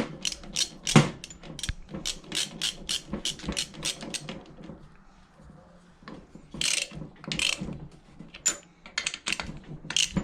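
Ratchet wrench clicking in quick runs as the head bolts on a Predator 212 engine's cylinder head are run down snug, with a brief pause and a couple of louder rasps partway through.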